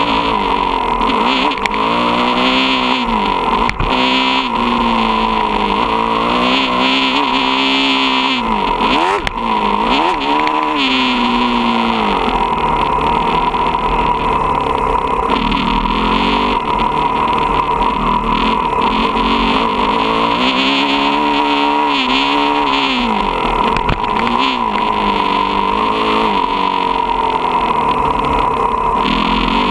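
Motocross dirt bike engine at full practice pace, revving up and falling off again and again as the rider works the throttle and shifts gears through the turns, recorded close by a camera mounted on the bike.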